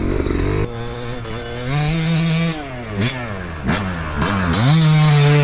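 Yamaha two-stroke dirt bike revving hard through a rutted corner. The engine pitch climbs, dips and recovers several times as the throttle is rolled off and back on, then holds high and steady near the end.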